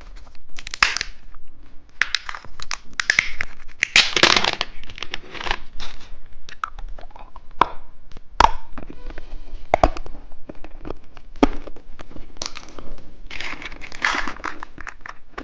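Crinkly plastic candy wrapper being handled and torn open by hand: irregular crackling and rustling with a few sharp clicks.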